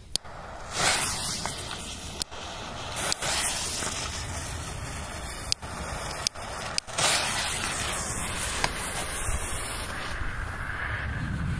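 Coloured smoke bombs burning: a steady, loud hiss of smoke jetting out, starting about a second in.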